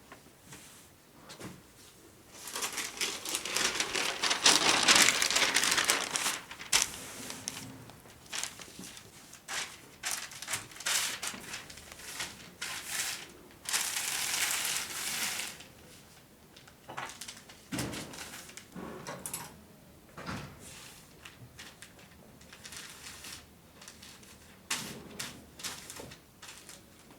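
Fabric and paper being handled, rustling and crinkling in irregular bursts. The longest burst lasts about four seconds, near the start.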